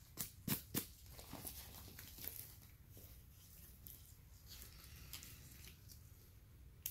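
Gloved hands patting and tapping a canvas bag holding metal boules, about four quick taps in the first second and a half. These are followed by faint rustling of the fabric and a cardboard tag as the bag is opened and handled.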